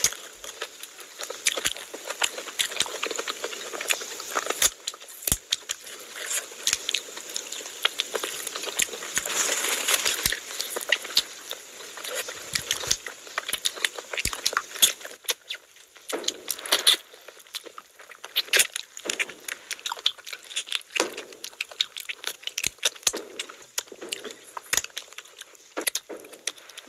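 Close-miked eating sounds: wet chewing and many quick mouth clicks and crackles as chicken curry and rice are eaten by hand and meat is bitten off a chicken leg.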